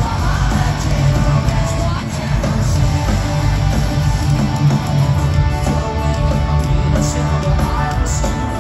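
Live rock band playing loud through an arena PA, with electric guitars to the fore, heard from among the crowd.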